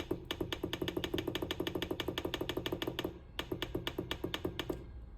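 Rapid, evenly spaced clicks, about ten a second, in two runs with a short break about three seconds in, as a number is stepped through on the automatic school bell controller's buttons to pick a stored bell sound.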